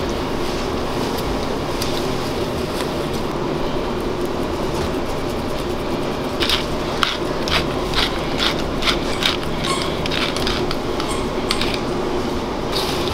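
Steady hum of kitchen ventilation machinery. About halfway through comes a run of short sharp clicks, roughly two a second.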